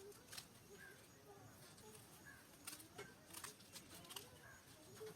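Near silence: faint outdoor ambience with scattered soft bird chirps and a few light clicks.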